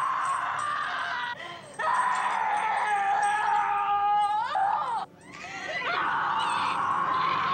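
A young woman screaming: long, drawn-out screams broken by two short pauses, the middle one rising in pitch as it ends.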